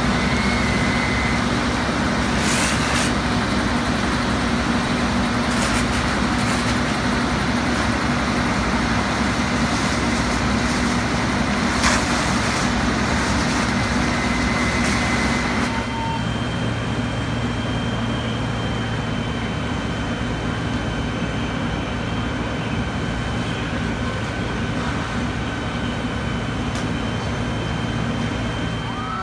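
Fire apparatus diesel engines running steadily under load, driving the pumps that feed hose lines and an aerial master stream. About sixteen seconds in, the noise drops a little and a lower steady hum takes over.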